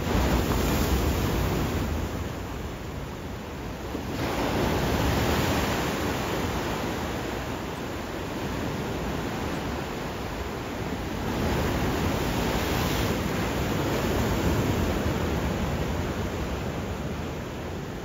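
Pacific Ocean surf washing onto the beach, a steady rush that swells and eases about four times as the waves come in.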